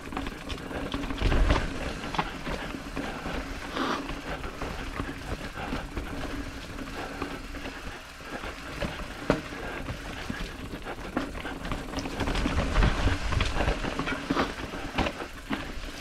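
Mountain bike running down a rough trail: a constant clatter of frame, chain and tyres over dirt and rocks, with wind rumbling on the microphone, heaviest about a second in and again from about twelve seconds on.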